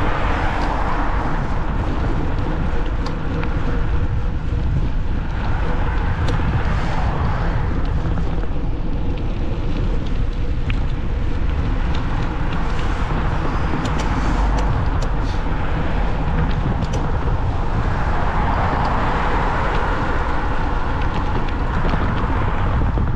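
Road traffic heard from the roadside over steady wind noise on the microphone, with car noise swelling and fading as vehicles pass, near the start, about five to seven seconds in, and again about eighteen to twenty-one seconds in.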